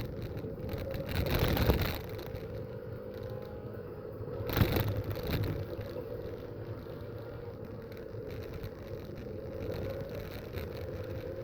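Race car engines running steadily, with two louder noisy swells, one about a second in and a shorter one about four and a half seconds in.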